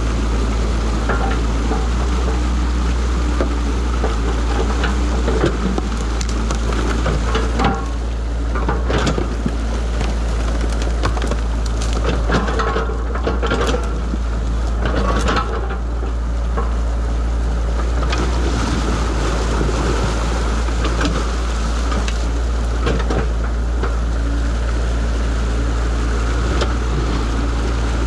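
Excavator's diesel engine running steadily close by, over the noise of muddy water rushing through a breached beaver dam, with a few knocks and scrapes from the bucket between about 8 and 16 seconds in.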